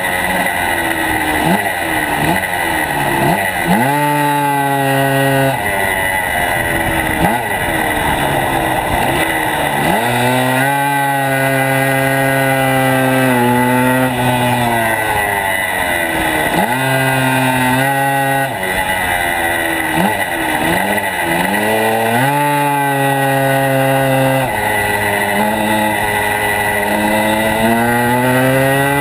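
Small racing engine heard from on board, loud and close, its revs climbing, holding steady for a few seconds, then dropping away and climbing again, over and over as the vehicle laps the track.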